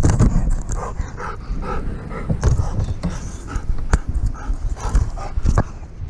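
A Rottweiler panting close to the microphone, over bumping and rubbing from the camera being handled, with a few sharp clicks.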